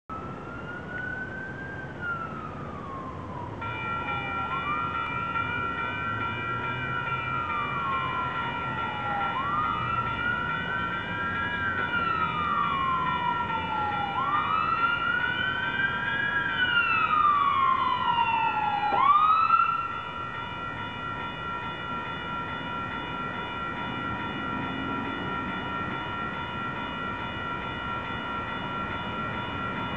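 An emergency-vehicle siren wailing, each cycle sweeping up quickly and gliding slowly down about every five seconds, then cutting off suddenly about nineteen seconds in. A few seconds in, a railroad crossing's warning bell starts and rings steadily on.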